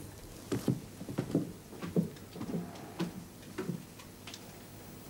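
A series of light knocks and taps, irregular at roughly two a second, stopping about four and a half seconds in.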